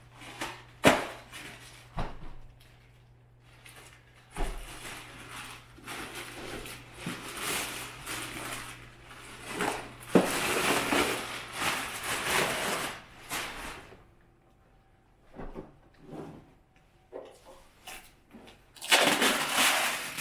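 Plastic packaging and bubble wrap rustling and crinkling as it is pulled and bundled, with a few sharp knocks from the plastic fender being handled.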